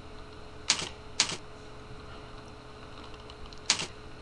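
Computer keyboard keystrokes as values are typed: two sharp key clicks about half a second apart near the start, fainter taps, then one more sharp click near the end.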